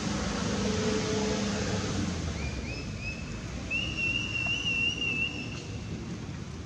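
Baby long-tailed macaque giving high, whistle-like cries: three short rising calls, then one longer wavering call. A low rumble fades out about two seconds in.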